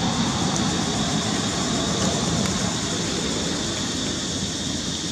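Steady outdoor background noise: a low rumble with a steady high-pitched hum over it, easing slightly near the end.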